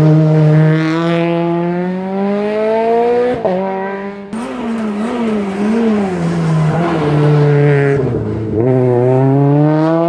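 Peugeot 208 rally car's engine accelerating hard out of a hairpin, its pitch rising steadily and dropping at a gear change about three and a half seconds in. The pitch then wavers up and down for a few seconds and climbs again near the end.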